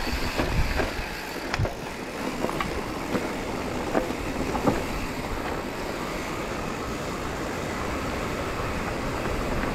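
Mountain bike riding a dirt trail: a steady rush of wind and tyre noise, with scattered clicks and clanks from the bike over rough ground in the first few seconds.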